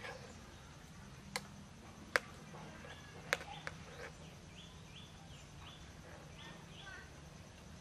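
Metal spoon knocking against a metal pan while stirring roasting red ants: four sharp clinks in the first four seconds, the second one loudest. Faint bird chirps in the background.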